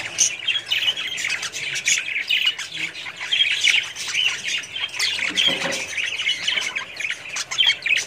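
A flock of budgerigars chattering, with many short high chirps overlapping without a break.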